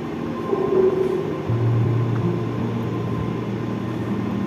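A steady low mechanical drone over background noise, its low hum growing stronger about one and a half seconds in.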